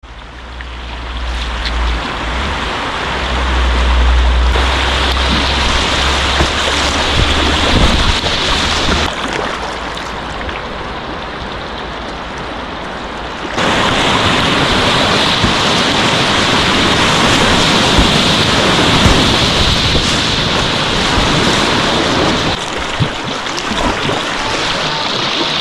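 Whitewater river rapids rushing, with wind buffeting the microphone for roughly the first nine seconds. The water sound changes abruptly three times along the way.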